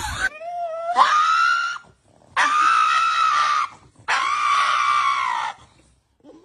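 Dog howling: three long, high calls, the first rising in pitch and the other two held level.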